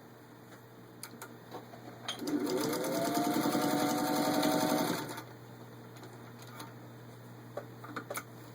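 Singer 201 sewing machine starting about two seconds in, quickly speeding up and then running steady while stitching through four layers of vinyl upholstery, and stopping about three seconds later. A few light clicks come before and after the run.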